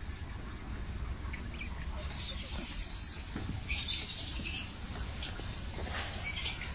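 Baby monkey squeaking, a run of short high-pitched chirps and squeals starting about two seconds in, over a low rumble of handling noise.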